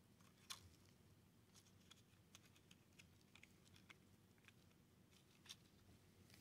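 Near silence with a few faint clicks and taps from a thin fuel pump diaphragm being pressed onto its gasket and the aluminum pump body by a gloved hand, fitting it over the locating pins. The two clearest clicks come about half a second in and near the end.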